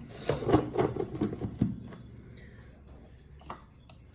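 Kitchen utensils clattering as dough is made ready for kneading: a spoon knocking against a plastic container and mixing bowl in a quick run of clicks and knocks, then quieter handling with a single knock near the end.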